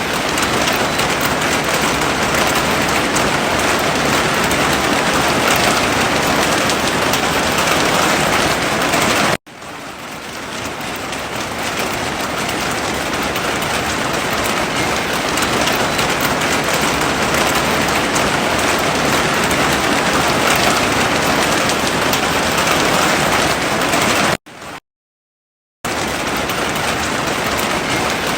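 Heavy rain falling in a steady, dense hiss. It cuts out abruptly twice: briefly about a third of the way in, then swelling back up over a couple of seconds, and for about a second of silence near the end.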